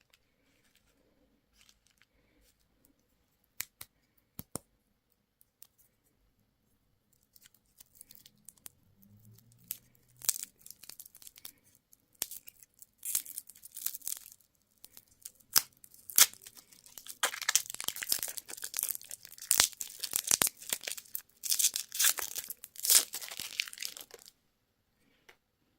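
Candy packaging being torn open and crinkled. A few sharp clicks come first, then the crackling starts sparsely, grows dense and loud, and stops suddenly near the end.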